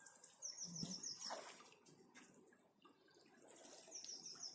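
Faint water dripping and splashing as a crayfish lift net is pulled up out of the river. Twice, a bird gives a quick high phrase of about five short notes.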